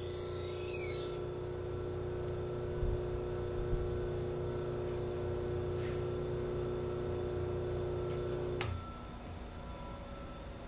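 Grinder with CBN sharpening wheels running steadily with a humming motor tone, a knife blade scraping against the wheel in the first second. About eight and a half seconds in there is a sharp click and the motor's tone stops.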